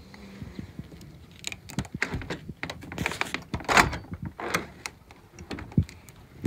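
A white plastic window being worked by its handle: a run of clicks and knocks from the handle and the sash moving in the frame, the loudest about four seconds in, then one more knock near the end.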